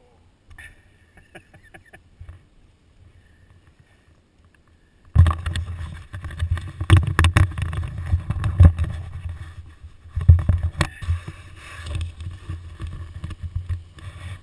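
A few faint clicks, then, about five seconds in, a sudden loud, irregular low rumble with scattered knocks on the helmet-mounted GoPro HD Hero2's microphone: handling and wind noise on the camera.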